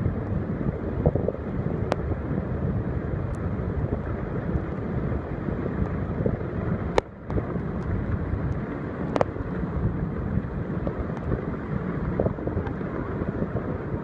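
Steady roar of the Gega waterfall pouring onto avalanche snow at its foot, with wind buffeting the microphone. The sound drops out briefly about seven seconds in.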